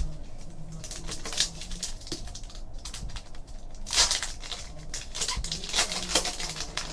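Foil trading-card pack being torn open and the cards flicked and shuffled by hand: a run of crinkles and light papery flicks, the loudest crackle about four seconds in.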